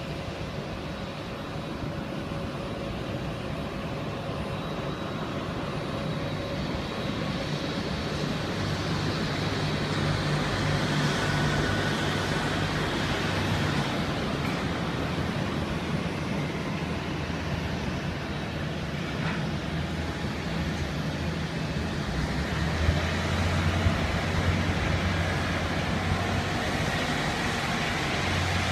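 Jet airliner engines running at takeoff power: a steady rush with a low hum and a faint high whine, growing louder over the first ten seconds and then holding.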